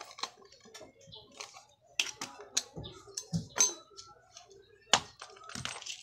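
Irregular clicks and knocks of washing-machine parts and hand tools being handled during a repair, plastic and metal tapping together, with the sharpest clacks about two, three and a half, and five seconds in.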